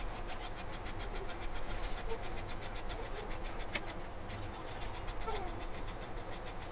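Rapid, even rasping as the green skin of a pointed gourd (potol) is scraped off against the edge of a boti, a curved upright blade, about seven or eight short strokes a second, with a brief pause about four seconds in.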